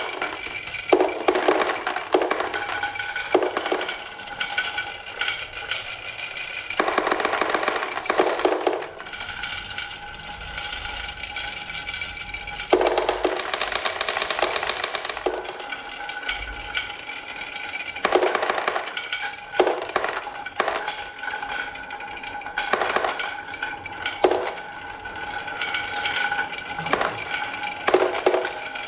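Marbles rolling and clattering down a HABA wooden marble run: dense clicking and rattling that swells and fades in waves of a second or two, over steady ringing tones.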